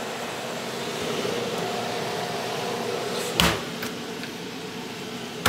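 Steady hum of a stainless-steel commercial refrigerator/freezer, and a metal cabinet door shutting with a sharp knock about three and a half seconds in, with another knock at the very end.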